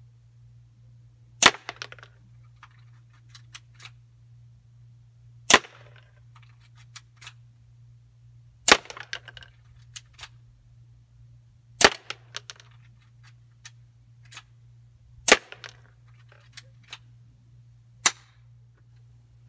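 Six single shots from a BB pistol, a few seconds apart. Each is a sharp crack followed by a scatter of fainter clicks.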